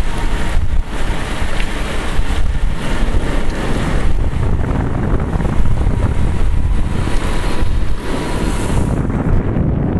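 Wind buffeting the microphone of a camera on a bicycle riding at speed: a loud, steady rumbling rush of air.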